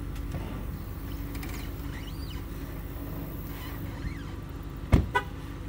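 An engine idling steadily with a constant low hum. Near the end comes a loud thump, then two short high squeaks.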